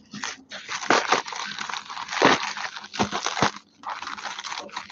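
Padded plastic mailer crinkling and rustling as it is cut and pulled open with a knife, with a few sharper crackles.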